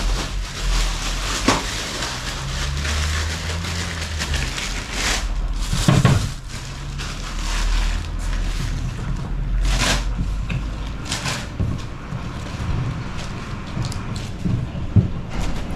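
Clear plastic bag crinkling and rustling as it is handled, with sharp crackles now and then, over a low rumble.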